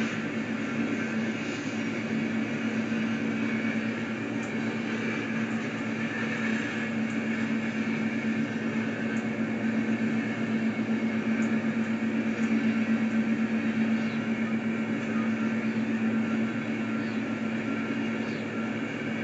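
Coal train's cars rolling past: a steady, unbroken running noise with a constant low hum, getting a little louder around the middle.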